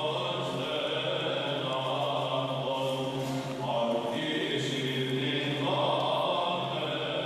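Slow Orthodox church chant: voices holding long notes over a steady low drone, moving to new notes a couple of times.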